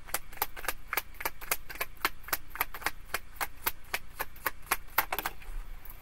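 Tarot cards being shuffled by hand: a rapid, uneven run of crisp clicks and snaps as the cards are riffled through the hands, about five or six a second, stopping a little after five seconds in.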